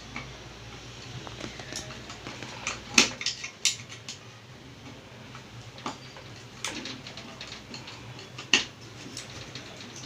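Scattered metallic clicks and taps of a screwdriver and small screws as the screws holding a mixer grinder's motor body are tightened by hand, with the sharpest clicks about three seconds in and again near the end. A faint steady low hum lies underneath.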